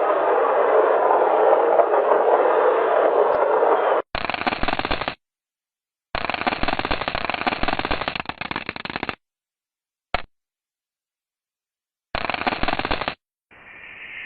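Crackling radio-static noise, a space radio recording played as sound: steady at first with a faint falling whistle, then in separate bursts of one to three seconds with dead silence between, ending in a thinner hiss with a steady high tone.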